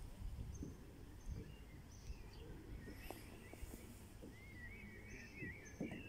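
A songbird singing a quick, wavering warble in the second half, with short high chirps at intervals, over a low steady rumble.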